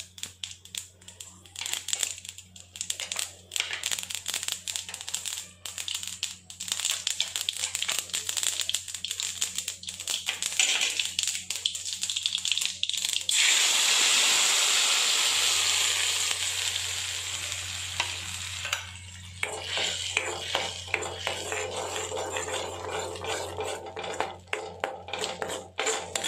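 Mustard seeds crackling and popping in hot sesame oil in an iron kadai. About thirteen seconds in, ground ginger paste hits the hot oil with a loud sizzle that fades over several seconds, followed by a metal spoon scraping and stirring the paste in the pan.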